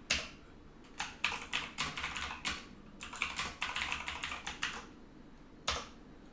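Typing on a computer keyboard: two quick runs of keystrokes separated by short pauses, then a single keystroke near the end.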